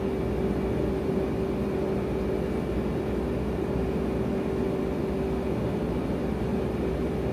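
Steady background hum: one constant mid-low tone over a low rumble, with no distinct event.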